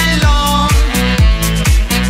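Background music with a steady beat: a kick drum about twice a second under held melody notes.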